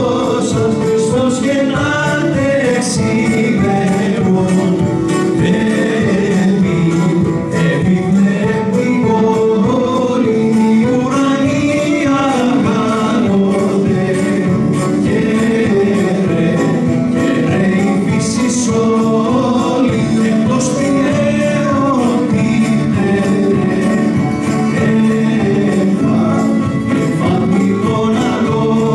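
A small live band playing with men's voices singing along as a group, a steady song without breaks.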